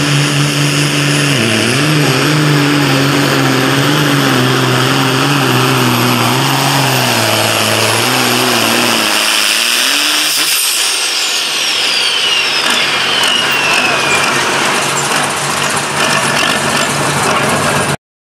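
Turbocharged diesel pulling tractor running hard under the load of the sled, its engine note steady at first, then wavering and sagging as the pull comes to an end. About ten seconds in, a second turbocharged International tractor takes over, with a high turbo whistle winding slowly down.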